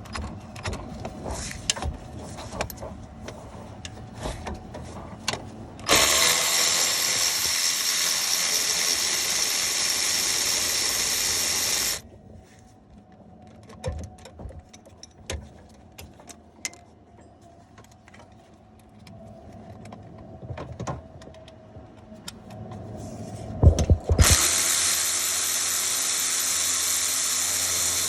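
A power tool with a socket runs steadily twice, for about six seconds and then about four seconds near the end, backing out the A/C compressor mounting bolts. Between the runs come light clicks and clanks of tools being handled.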